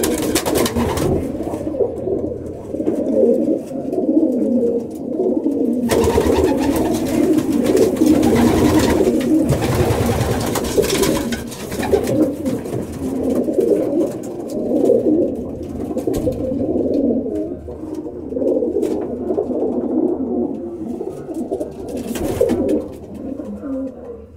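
Many racing pigeons cooing continuously in a small loft, a dense overlapping chorus. A longer spell of rustling runs through the first half, and a short one comes near the end.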